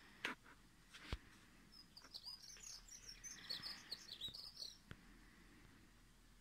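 European starling singing faintly: a rapid run of varied high chirps and whistles lasting about three seconds. It is preceded by two sharp knocks in the first second or so.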